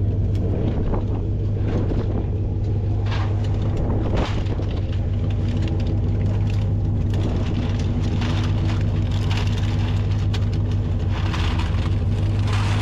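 Aluminum drink cans clattering as they are poured out of bags into a bin, over the steady hum of an engine running.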